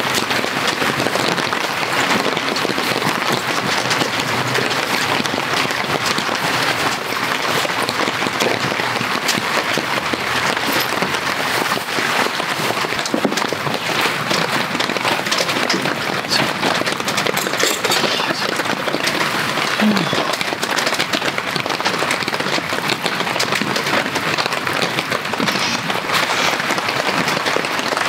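Heavy rain falling steadily, a dense, even patter of drops.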